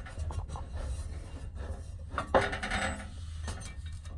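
Scattered light metallic clinks and clicks from exhaust piping and hardware being handled and fitted, with a short scrape a little over two seconds in, over a low steady hum.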